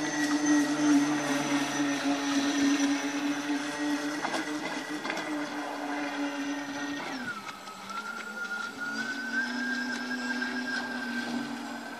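Electric motors of radio-controlled model boats whining steadily on the water; about seven seconds in the pitch drops, then settles a little lower.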